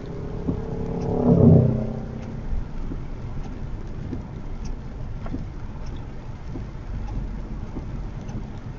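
Honda HR-V e:HEV hybrid driving on a wet road in the rain: steady road and rain noise with scattered small taps. A brief louder pitched sound comes about a second and a half in.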